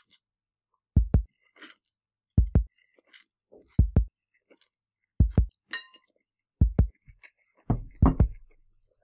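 A low double thump like a slow heartbeat, repeating evenly about every second and a half. Faint clicks from eating sit between the beats, and a short ringing clink comes about six seconds in.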